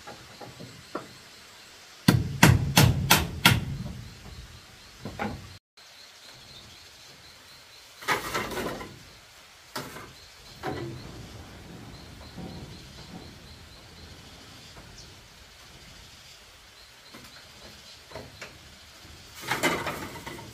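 Five quick hammer blows on bamboo, about three a second, followed by a few lighter knocks. Two longer rustling scrapes come later, one near the end.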